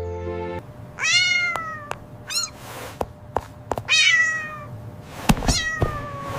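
A cat meowing four times: long meows falling in pitch about a second in, at about four seconds and near the end, with a short one between the first two. Several sharp clicks fall between the meows.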